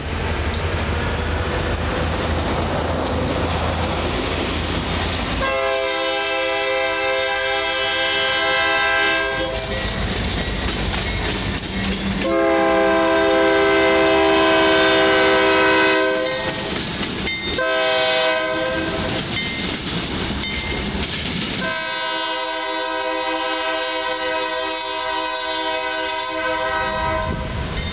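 Diesel freight locomotives passing with the lead unit's air horn sounding the grade-crossing signal: two long blasts, a brief one, then a final long blast, each a chord of several notes. Engine rumble and steel wheels rolling on rail run underneath.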